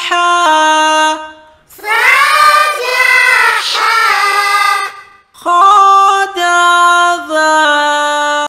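Unaccompanied singing as an opening jingle: held notes that step up and down in pitch, in three phrases with two short pauses, the middle phrase fuller and choir-like.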